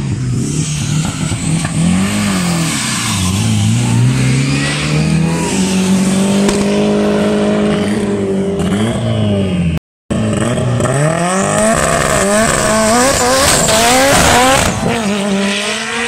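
Cars' engines revving hard as they pass, the pitch rising and falling. After a brief dropout about ten seconds in, a Mitsubishi Lancer Evolution VI RS's turbocharged four-cylinder launches and accelerates, its revs climbing again and again in quick succession.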